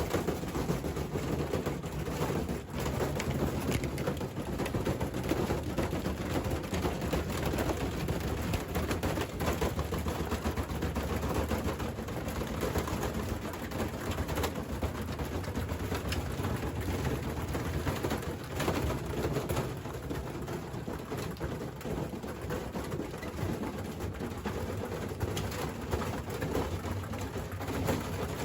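Washing machine running hard, with a continuous rattling and knocking from the cabinet.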